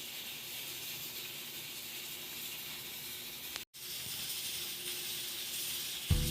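Steady high hiss, cut off completely for a moment about three and a half seconds in, with louder sound coming back near the end.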